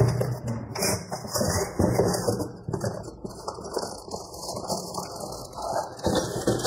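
Cardboard box being opened and handled: irregular scraping and rustling of cardboard with small knocks as an inner box is slid out.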